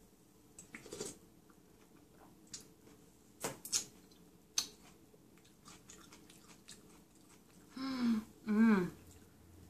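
Eating ramen: a spoonful of broth sipped about a second in, then chewing and several sharp clicks of the spoon and chopsticks in the glass bowl. Near the end come two short hummed 'mmm's of enjoyment.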